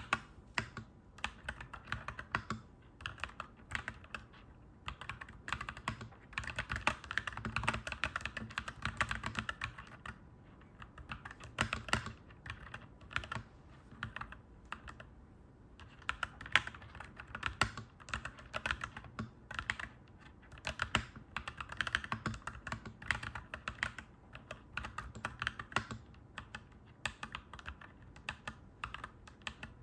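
Clacky mechanical keyboard being typed on in quick runs of keystrokes, with brief pauses between bursts.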